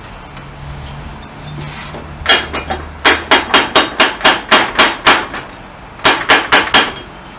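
Hammer blows in quick runs of about four a second: a few at first, a run of about nine, then four more near the end. They are knocking a stuck part of the Honda Dio scooter's cylinder and piston assembly loose.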